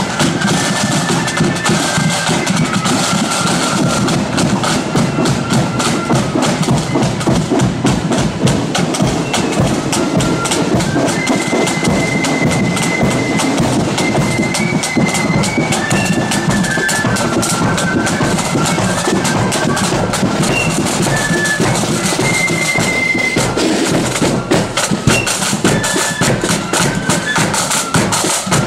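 Marching flute band playing on the march: high flutes carrying the tune over steady side drum beats.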